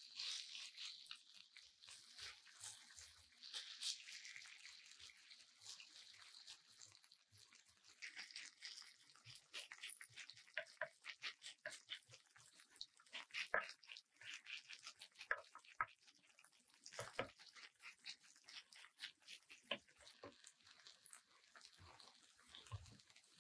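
Faint sizzling and crackling of shredded potato frying in oil in a nonstick pan, a scatter of small irregular crackles over a soft hiss. Soft taps and scrapes come from tongs and a spatula spreading and pressing the shreds flat.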